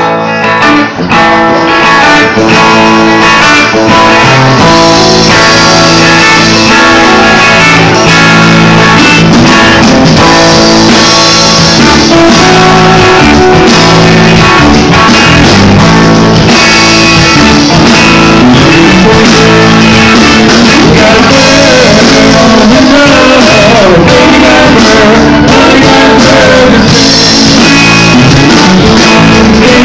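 Live band playing loud: two electric guitars over a drum kit, with a singing voice coming in during the second half.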